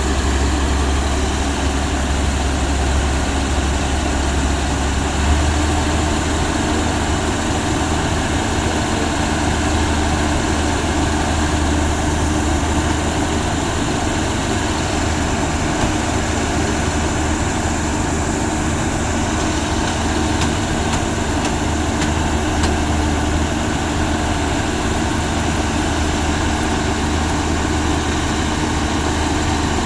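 Rice combine harvester engine running steadily with the machine's unloading mechanism, a continuous low hum with a slight shift in pitch about five seconds in.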